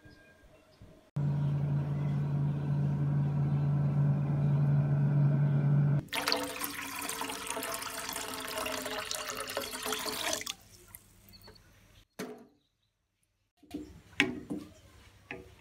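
Water running with a steady low tone from about a second in, then a brighter splashing of water poured into a stainless-steel pot. Near the end, a few clicks of a wooden spatula against the pot as sugar syrup is stirred.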